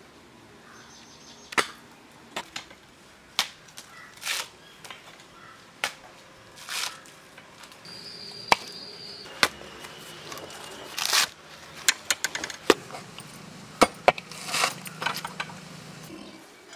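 Irregular sharp chopping knocks from coconuts being husked and handled, a few scattered strikes at first, then quicker, several a second, in the second half.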